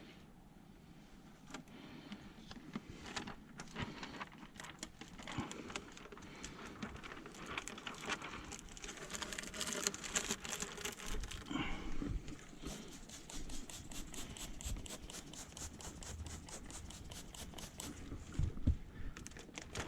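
Faint crinkling and crackling of window tint film and its liner being handled and unrolled onto the glass, a dense run of small clicks that grows busier about halfway through.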